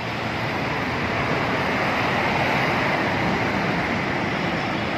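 Steady rush of road traffic passing under a concrete flyover, swelling a little in the middle, mixed with wind noise on the microphone.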